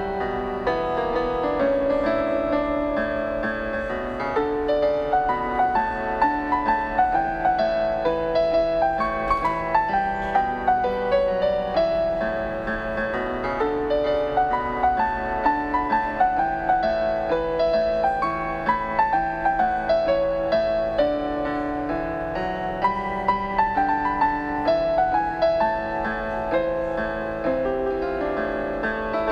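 Background instrumental music: a piano melody of separate notes moving up and down over held chords.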